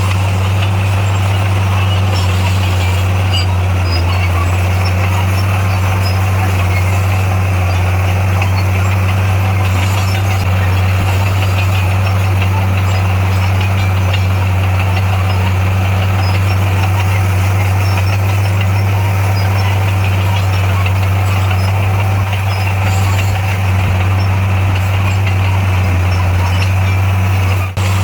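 Heavy diesel earthmoving machinery running steadily with a constant low engine drone, with one brief dip near the end.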